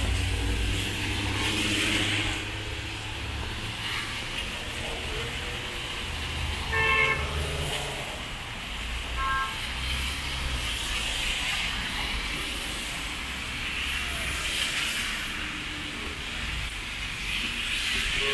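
Traffic on a rain-soaked city street: car tyres running through water and engines passing, with rain falling. A short car horn toot sounds about seven seconds in, followed by a fainter short beep.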